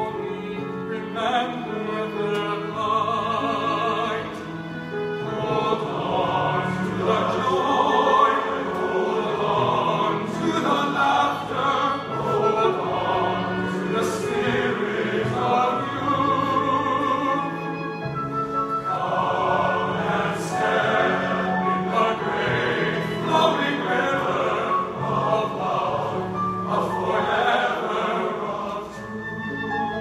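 A solo voice singing with vibrato over a men's choir holding sustained chords.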